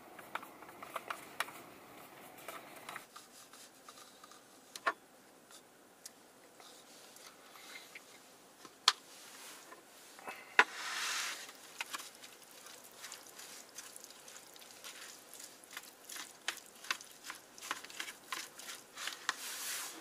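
Chopsticks tapping, clicking and scraping against a plastic food tray while mixing raw-fish mulhoe with chili sauce, with irregular light taps and a few louder knocks. A short rustling rush comes about eleven seconds in.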